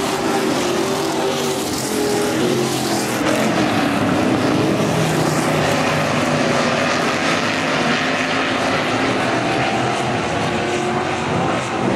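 Several dirt-track stock car engines running at race speed around the oval. Their pitch rises and falls as the cars pass and accelerate out of the turns.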